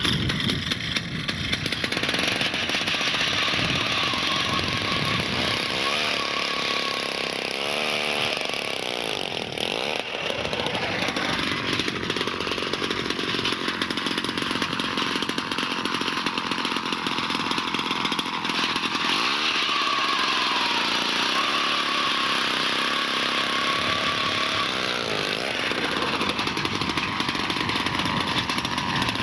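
Small two-stroke engine of a gas-powered ice auger running, its pitch dipping and rising a few times as the load on the drill changes.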